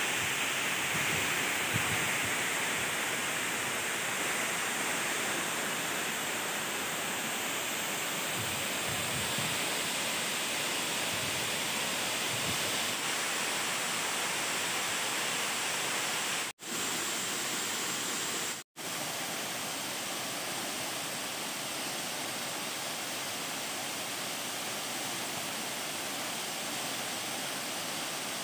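Waterfall's steady rush of falling water. Twice, about 16 and 19 seconds in, the sound drops out for an instant.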